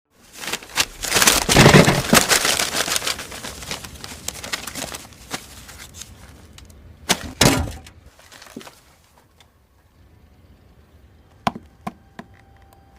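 Foley of paper being crumpled: a loud, dense crackling for the first several seconds that fades out. Two sharp hits follow about seven seconds in, and a few faint ticks come near the end.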